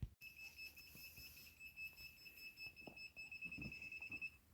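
Faint laser level receiver beep: one steady high tone held for about four seconds, the signal that it has picked up the laser at the height it is set to, here bottom of slab.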